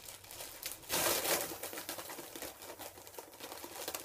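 Foil helium balloon crinkling as it is squeezed and sucked empty through its neck, with a loud breathy rush of gas being inhaled about a second in.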